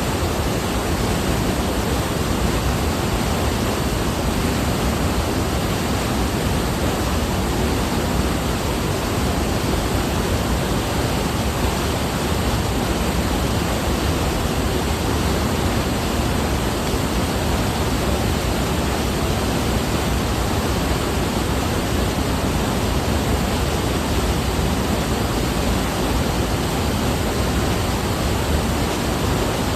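Giessbach Falls: a steady rush of falling water.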